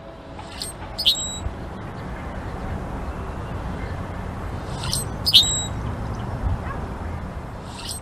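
Male Brewer's blackbird giving short, sharp, squeaky notes in three brief bursts, about a second in, about five seconds in and at the end, each a pair of notes ending in a thin whistle. A steady low rumble runs underneath.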